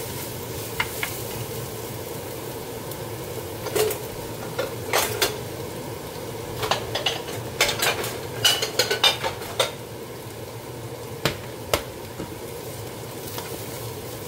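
Shiitake mushrooms and onion sizzling steadily in a frying pan while a wooden spoon stirs them. Scattered knocks and clatters come in clusters, busiest in the middle.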